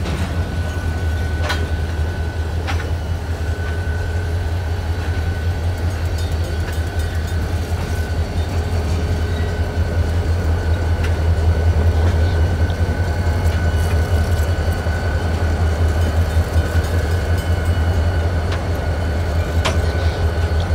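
Freight train rolling through a grade crossing: covered hopper cars clatter past with occasional sharp wheel clicks. From about halfway, EMD GP40-series diesel locomotives pass and their two-stroke engines add a louder low steady drone.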